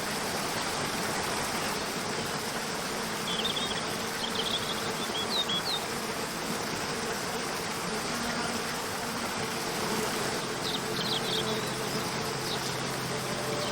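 Waterfall rushing steadily, with short high bird chirps a few seconds in and again near the end. Faint soft background music comes in toward the end.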